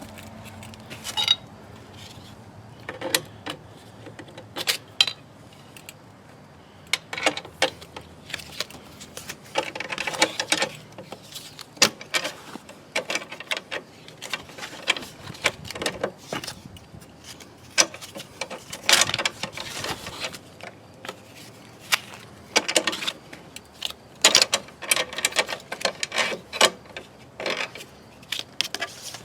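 A modified car jack being worked to raise the rear of a car: irregular metallic clicks, clanks and scrapes, some coming in quick runs.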